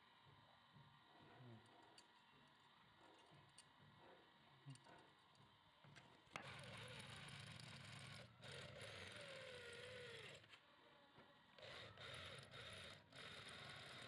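A few faint clicks of the metal plate being handled, then about six seconds in an electric hand drill starts boring through the iron plate. The drill runs in spurts, stopping briefly several times as the bit cuts through.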